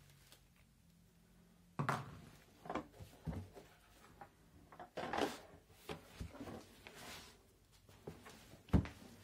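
Eclipse Ice Fishbox plastic ice-fishing box being handled and turned over: a run of hollow plastic knocks and clatters, starting about two seconds in, with some bubble-wrap rustle. A sharp knock near the end is the loudest, as the box is set down on the floor.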